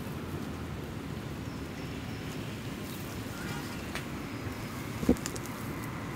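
Steady low rumble of distant road traffic, with one brief thump about five seconds in.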